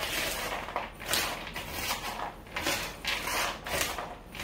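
Large spoon tossing frozen wild blueberries coated in sugar in a big mixing bowl: a run of irregular scraping, rustling strokes as the berries shift against the bowl.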